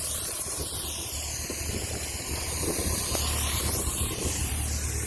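Compressed-air blow gun from a large air compressor, blasting dust and chaff out of the underside of a combine with a steady hiss.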